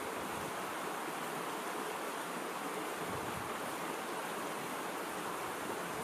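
A steady, even rushing noise with no breaks, and a few faint low rumbles about three seconds in.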